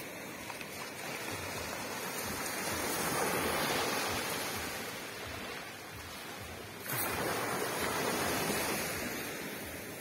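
Small waves washing in over sand and drawing back, rising and falling twice; the second surge starts suddenly about seven seconds in.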